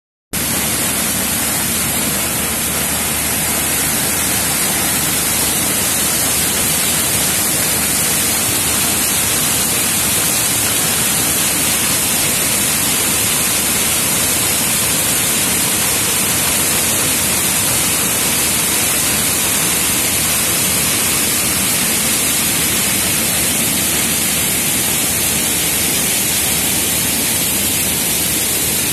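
Muddy floodwater gushing from two large pump outlet pipes and splashing into a river: a loud, steady rushing noise.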